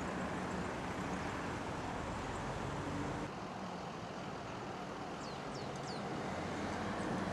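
Steady engine-like rumble and hum of outdoor background noise. The sound changes abruptly about three seconds in, and a few short high chirps come near the middle.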